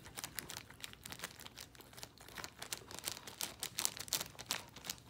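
Shih Tzu licking and nosing at a plastic zip bag, the plastic crinkling in quick, irregular crackles.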